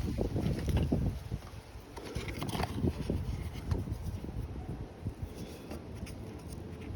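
Irregular light scraping, small clicks and handling knocks of a tool working perished rubber residue out of the inside of a plastic doll torso.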